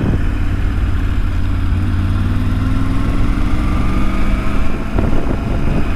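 Motorcycle engine running steadily as the bike rides along, heard from on board with the engine's hum close to the microphone.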